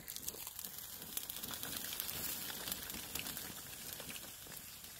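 Flaming torch on a pole burning a wasp nest, crackling with many small irregular pops over a steady hiss.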